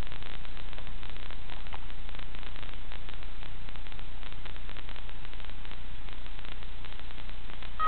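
Steady hiss of radio static with a low hum, the empty audio channel of an analog FPV video receiver recorded by its DVR.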